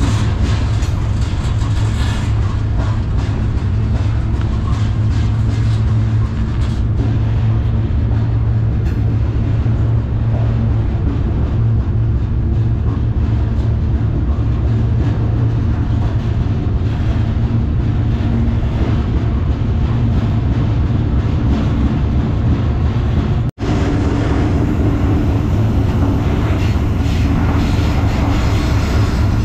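Freight train's well car rolling along the track, heard from on board the car: a loud, steady low rumble with rattling. It cuts out for an instant about 24 seconds in.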